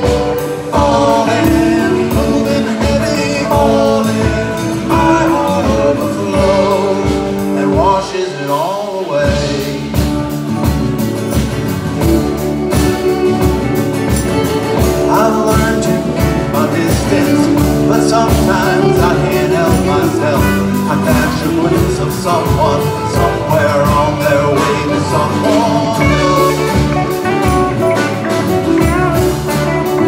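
Live folk-rock band playing a jam: bowed violin, acoustic and electric guitars, bass, drum kit and congas over a steady beat.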